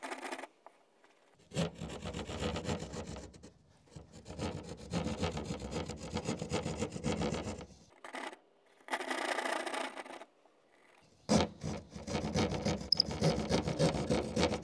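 Hand drywall saw cutting through drywall in rapid back-and-forth rasping strokes. The sawing comes in several runs of a few seconds each, with brief pauses between them.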